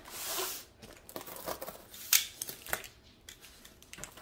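Paper and card packaging being opened by hand: a rushing tear in the first second, then scattered crinkles and sharp clicks.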